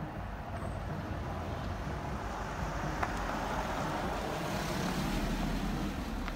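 A vehicle passing along the street, its road and engine noise swelling to its loudest about four to five seconds in over a low rumble of traffic, with a faint click about three seconds in.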